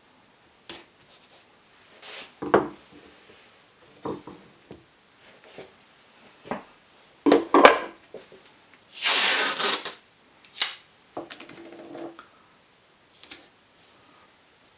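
Blue masking tape being pulled off its roll, with a loud drawn-out rip about nine seconds in, among scattered knocks and rustles as the tape roll and wooden stool are handled.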